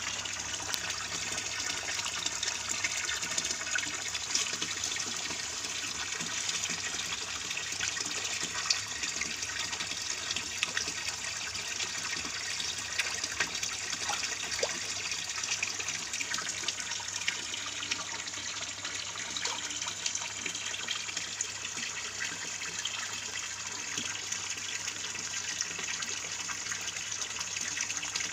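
Water splashing and sloshing steadily as a crowd of koi churns at the surface, with many small clicks and splashes from the fish.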